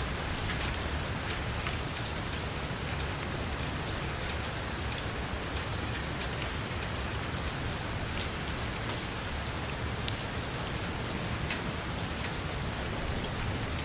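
Heavy rain falling on a metal roof: a steady hiss with scattered sharp drop ticks, one louder tick about ten seconds in.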